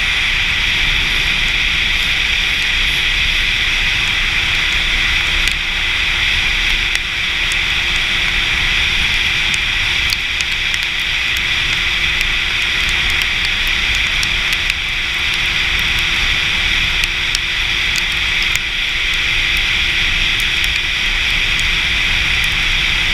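Steady rush of wind and road noise from an inline-four sportbike cruising at a constant speed on a wet road. A faint even engine drone sits underneath, with scattered light ticks.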